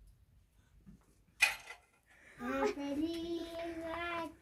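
A brief hiss about a second and a half in, then a voice singing one long, steady held note from about halfway through.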